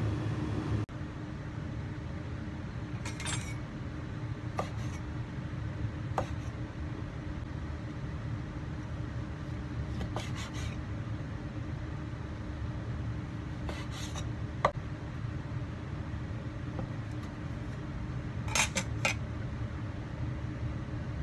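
Chinese cleaver slicing boiled snail meat on a wooden cutting board: scattered sharp knocks of the blade striking the board, a few seconds apart, the loudest about two-thirds of the way in. A steady low hum runs underneath.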